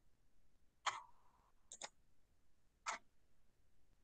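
Computer mouse clicks: a single click about a second in, a quick double click near two seconds, and another single click near three seconds.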